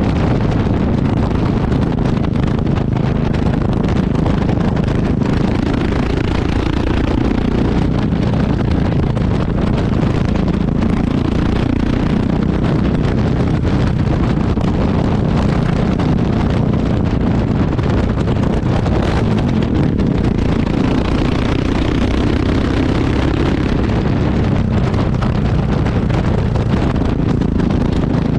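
Yamaha XT660X single-cylinder motorcycle running steadily through its exhaust, with heavy wind noise on the microphone.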